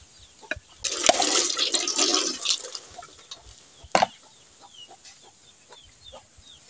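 Coconut water gushing and splashing out of a coconut just cracked open with a bolo, a rush that starts about a second in and lasts about two seconds. Near the middle, one sharp knock of the blade striking a coconut shell.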